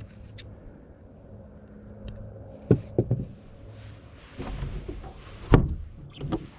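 A few sharp knocks and thumps of gear being handled in a fishing boat, loudest about two-thirds of the way in, over a steady low hum.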